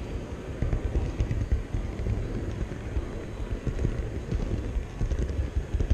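Model train wheels rolling along the track, a steady close-up rumble with irregular clicks and clatter over rail joints and turnouts, picked up by a camera riding on the train, over the background noise of the show hall.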